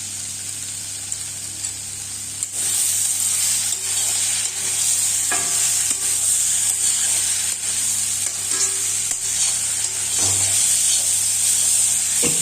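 Boiled chickpeas and spice paste sizzling in a hot pan while being stirred, with a few knocks of the spatula against the pan. The sizzle grows louder about two and a half seconds in.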